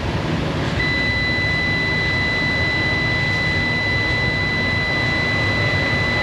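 Multimeter continuity beep: one steady high tone starts about a second in and holds, signalling that the meter's probes have good contact on the fuel injector's pins. A steady low background rumble runs beneath it.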